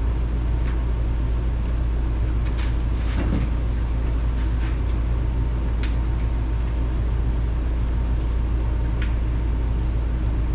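Cummins diesel engine of a Ram 5500 truck idling steadily, with a few light clicks and knocks scattered through.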